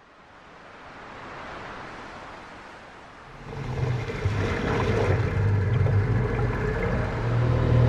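Surf washing on the shore fades in, and about three seconds in the louder, steady low drone of fishing-boat engines joins it.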